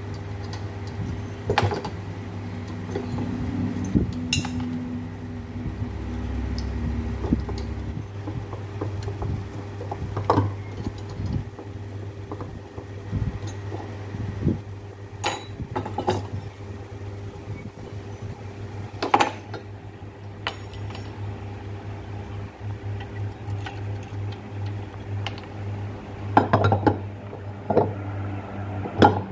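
Metal parts of a car alternator clinking and knocking as it is dismantled by hand on a workbench, opened up to find what is faulty. Scattered sharp taps sound at irregular intervals over a steady low hum.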